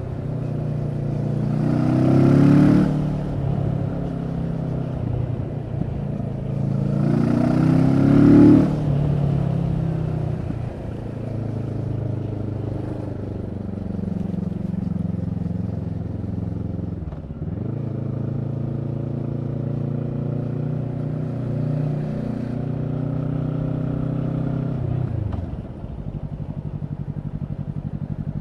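Kawasaki Z650's parallel-twin engine through a Leo Vince EVO carbon exhaust, on the move. It pulls up in pitch twice in the first nine seconds, then runs at steady revs. A few seconds before the end the revs drop to a low, even beat.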